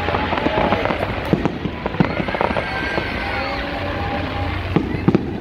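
Fireworks bursting and crackling, with many sharp bangs.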